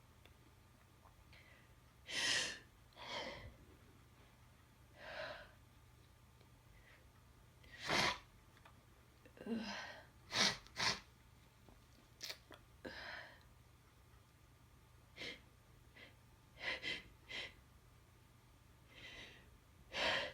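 A person with a head cold sniffing and taking short, sharp breaths: about a dozen brief, soft bursts of breath noise with quiet gaps between them.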